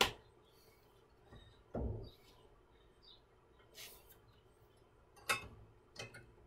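A few soft knocks and clicks as a Biesemeyer table saw fence is nudged along its rail to line up with a mark, with a low thump about two seconds in.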